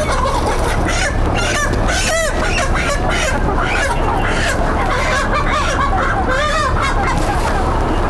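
A flock of brown hens squawking and clucking, many short rising-and-falling calls overlapping, the alarm calls of birds being chased and grabbed by hand. A steady low rumble runs under them.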